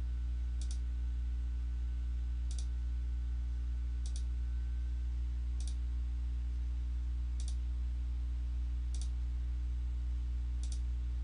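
A steady low electrical hum with a faint click about every one and a half to two seconds, seven in all, as the slides are advanced.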